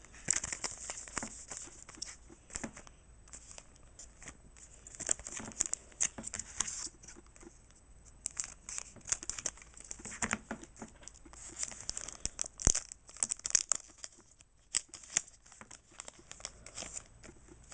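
A foil Pokémon booster pack wrapper being torn open and crinkled, in a long run of irregular short crackling rustles.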